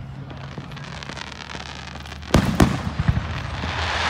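Fireworks going off: two loud bangs a little over two seconds in, quickly followed by several smaller pops. Then a loud hiss of spraying sparks rises near the end.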